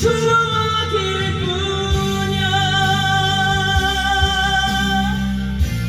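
Rock band music with a male rock vocal holding one long note with vibrato over the band, which cuts off about five seconds in before the band goes on.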